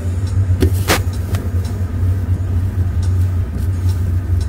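Steady low rumble of street traffic, with a single sharp click about a second in.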